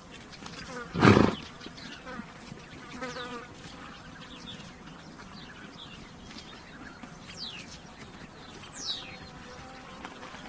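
A horse gives one short, loud snort about a second in, with flies buzzing around it. A few brief high falling bird calls come between about 7 and 9 seconds in.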